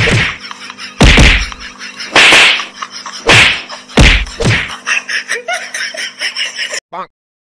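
Cartoon-style punch and slap sound effects over background music: five loud whacks about a second apart, then a run of lighter, quicker hits, before the sound cuts out.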